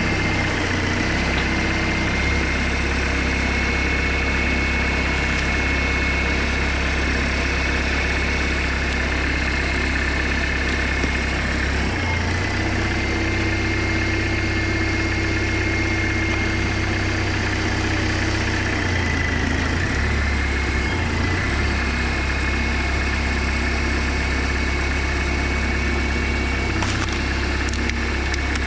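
Homemade tractor's engine running steadily while it powers a hydraulic log splitter, with a high steady whine over it. The engine note and the whine dip briefly a couple of times as the splitter comes under load, and a short crack of wood splitting comes near the end.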